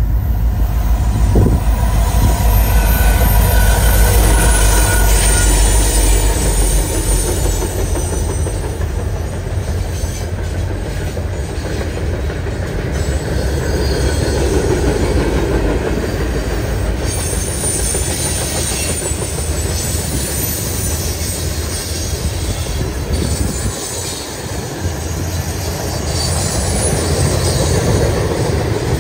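Canadian National diesel freight train passing close by. The locomotives give a heavy low rumble for the first several seconds, then the freight cars keep up a steady rolling noise with wheels clattering on the rails.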